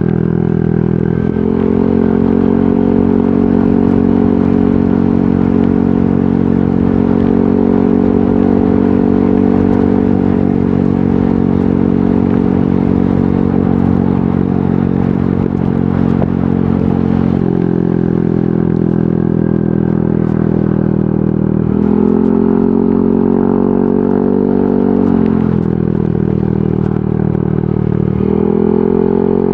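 Yamaha NMAX 155 scooter's single-cylinder engine running through an aftermarket VMAX Onyx muffler, loud and steady while riding. Its pitch holds for long stretches, then drops and rises several times as the throttle changes, dropping about two-thirds of the way in and rising again near the end.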